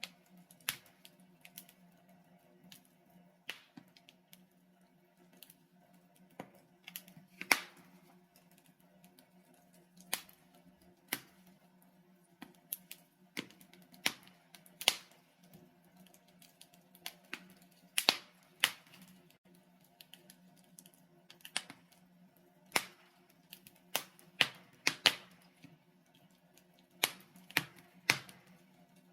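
Logs burning in a fireplace, crackling with irregular sharp pops and snaps, some much louder than others, over a faint steady low hum.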